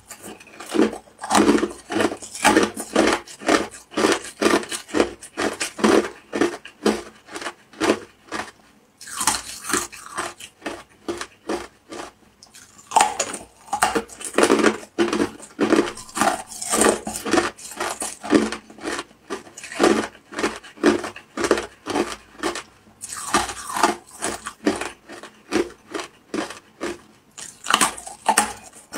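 Ice being bitten and chewed close to the mouth: a long run of quick, sharp crunches, a few every second, broken by short pauses between bites.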